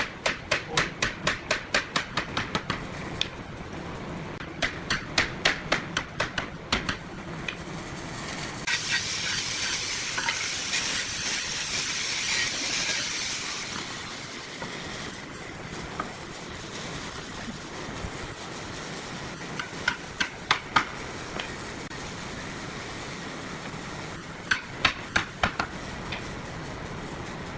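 Hammer blows in quick runs, about five taps a second, likely a hammer driving nails into cabinet woodwork. There is a few seconds of steady hiss partway through.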